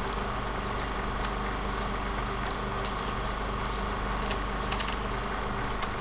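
Steady mechanical hum over a low drone, dotted with irregular clicks and ticks.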